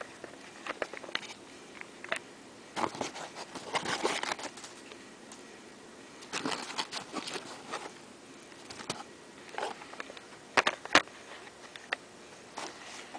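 Food and its takeout packaging being handled: intermittent rustling with scattered sharp clicks and taps, in clusters a few seconds in and again in the middle, and a couple of crisp clicks near the end.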